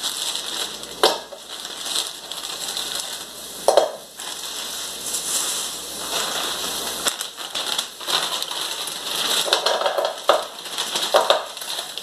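Brussels sprouts poured from a crinkling plastic bag into a hot oiled skillet, hissing and crackling as they hit the oil. A few sharper knocks come as sprouts land in the pan, the loudest about four seconds in.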